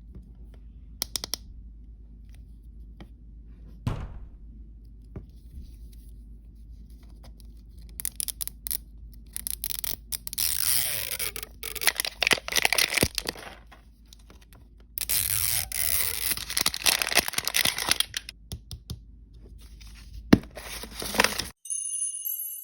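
Plastic blind-bag packaging being torn open and crinkled by hand, with scattered clicks and two long spells of loud crinkling and ripping. Near the end it cuts abruptly to a short jingly chime tune.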